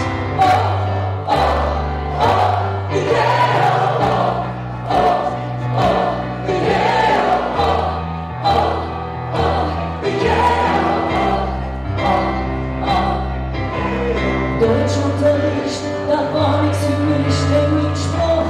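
Live song: a woman singing in Kölsch dialect into a microphone over a keyboard accompaniment with a bass line that changes every second or two and a steady beat.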